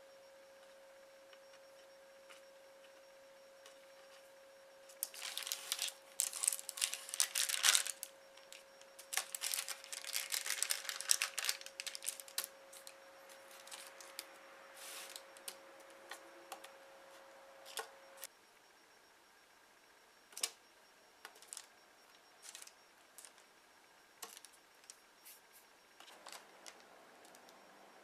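Baking paper crinkling and rustling in bursts for several seconds as cookie dough is cut and moved on it, then scattered light clicks and taps from the metal cutter and fork on the dough and paper. A faint steady hum runs underneath and stops about two-thirds of the way through.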